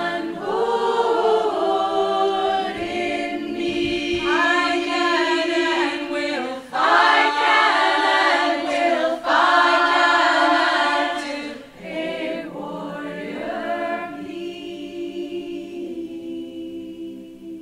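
A choir singing a cappella in sustained chords, swelling loudest in the middle, then settling into a quieter held chord that fades away near the end.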